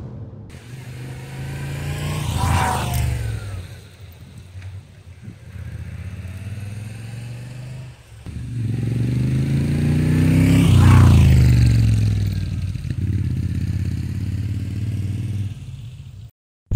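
Moto Guzzi V7 III's 744 cc transverse V-twin riding past twice, its engine note rising as it comes near and falling as it goes away. The first pass is on the stock exhaust. The second, about eight seconds in, is on an Agostini carbon fibre exhaust and is louder.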